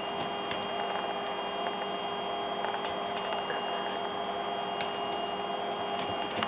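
A steady electrical hum, with faint scattered ticks from two puppies scuffling over a dry leaf on a tiled floor.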